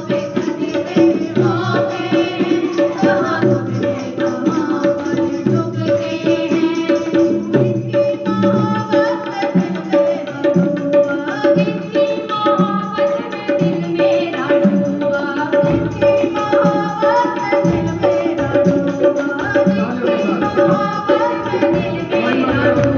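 Music of a Hindi Christian worship song: a steady, busy drum rhythm under a held chord and moving melodic lines.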